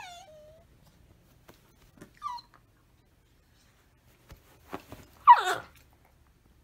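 A dog whining while playing with another dog: a falling whine at the start, a short whine about two seconds in, then a louder, harsher cry about five seconds in, with a few soft knocks just before it.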